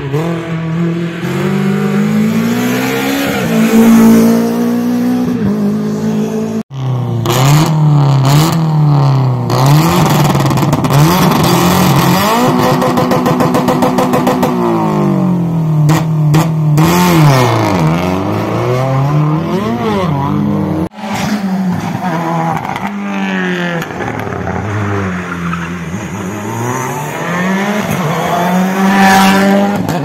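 Rally car engines at full throttle: the pitch climbs and drops again and again as they accelerate and shift gears, with abrupt cuts between cars about a third and two thirds of the way in. In the middle section a Subaru Impreza rally car's flat-four is held at high revs with a fast stuttering rhythm, then launches and runs up through the gears, with some sharp cracks in between.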